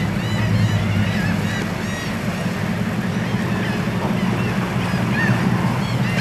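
Sportfishing boat's engine idling with a steady low drone as the boat motors slowly into the basin. Over it, gulls call in quick repeated cries, most thickly at the start and again about five seconds in.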